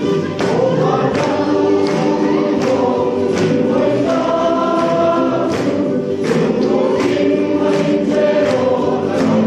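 Men's choir singing a hymn in full harmony, with a sharp beat marking time about every three-quarters of a second.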